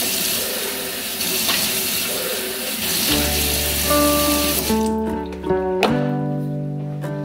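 Tap water running into a shaker cup, stopping about four and a half seconds in. Background music with held notes comes in about three seconds in and carries on.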